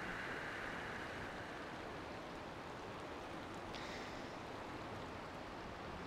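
Mountain river rushing over a rocky, cobbled bed: a steady, even wash of water noise.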